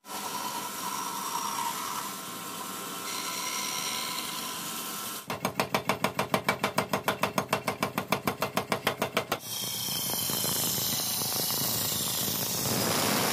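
A band saw cutting through a wooden board runs steadily. About five seconds in it gives way to a mechanical power hammer pounding a red-hot steel sickle blank in rapid, even blows, about seven a second. Near the middle it switches to a grinding wheel grinding the sickle's edge, a steady hiss.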